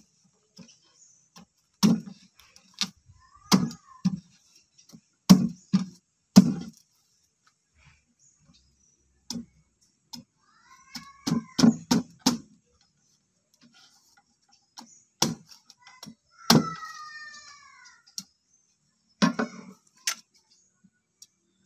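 Machete blade chopping into a thick, spiny durian husk on a wooden board: over a dozen sharp, heavy knocks in irregular bunches, with short pauses between.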